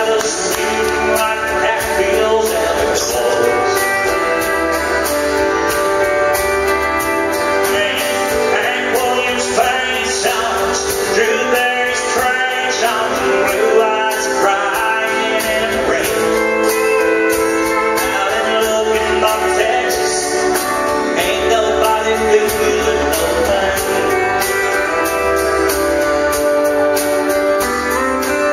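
Live country band: a male singer sings over strummed acoustic guitar, with pedal steel guitar and drums keeping a steady beat.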